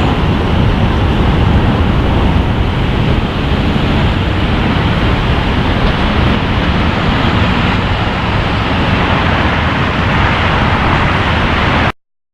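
Steady city road traffic: cars passing on a busy street, heard as a continuous loud rush that cuts off abruptly at the very end.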